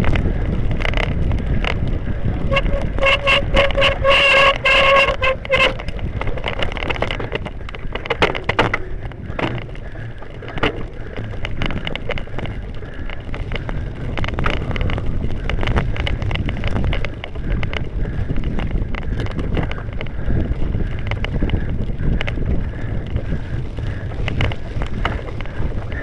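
Cyclocross bike riding over rough grass and a muddy woodland trail, heard from a camera on a following bike: a constant low wind rumble on the microphone with a clatter of knocks and rattles from the rough ground. A held pitched tone with overtones sounds for about three seconds near the start.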